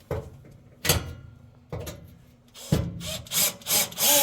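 A series of sharp knocks and clatters as a power drill-driver is set against a screw on the oven's sheet-metal floor panel. Near the end the driver starts whirring steadily to back out the screw.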